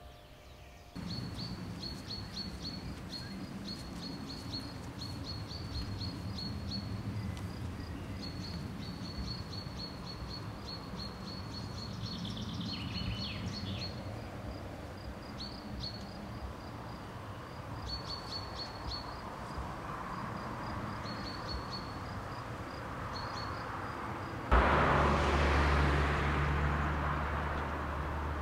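Birds chirping and singing in a long series of short, high notes over a steady low background rumble. About 24 seconds in, a sudden louder rushing noise with a low hum cuts in and slowly fades.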